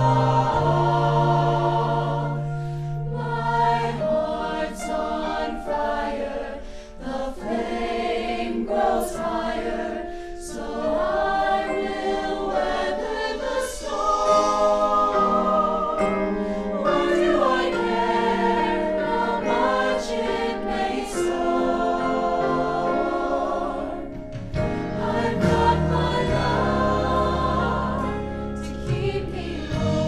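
Mixed choir of student singers, boys and girls, singing together in harmony, with held chords that change every second or two.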